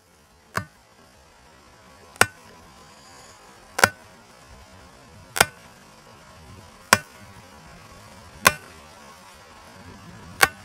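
A hammer driving a stake into turf: seven single, evenly spaced blows, about one every second and a half.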